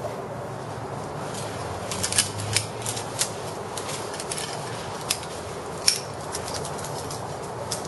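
Irregular sharp metallic clicks and clinks, carabiners and quickdraws knocking on a climber's harness as he moves up the rock, loudest a few times between about two and six seconds in, over a steady background hiss.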